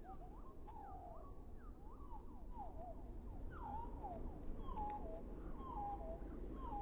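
An animal's repeated calls: short falling whistled notes, quick and overlapping at first, then from about halfway through a regular call about once a second, each a level note that drops to a lower one, over a steady low background noise.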